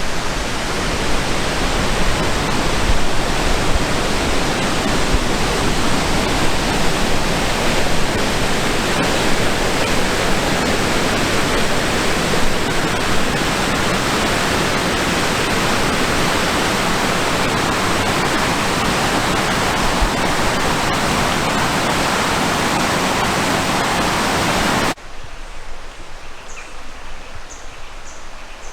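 Stream running high after heavy rain, a loud steady rush of fast water. About 25 seconds in it cuts off abruptly to a much quieter outdoor scene with a few faint bird chirps.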